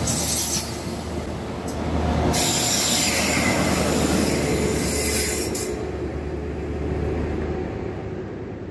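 Train on the move: a steady low drone under a hissing, squealing rush of wheels on rail that flares briefly at the start and swells again from about two to five and a half seconds in. The sound then gradually fades.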